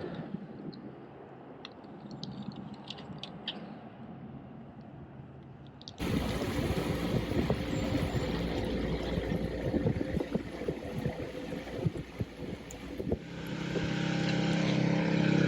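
Steady rushing noise that jumps suddenly louder about six seconds in, with a motor hum building near the end.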